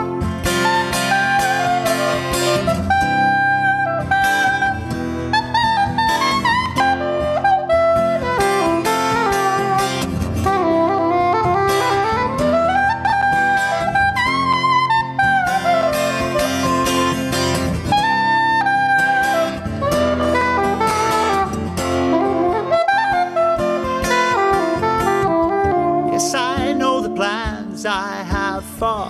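Soprano saxophone playing a melodic jazz line of held and sliding notes over strummed acoustic guitar.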